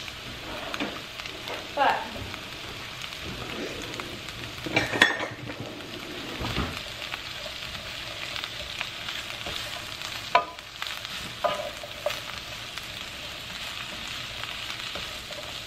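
Shredded cabbage and onion sizzling in a frying pan while a wooden spoon stirs them, with a steady frying hiss. A few sharp knocks of the spoon against the pan, the loudest about five seconds in.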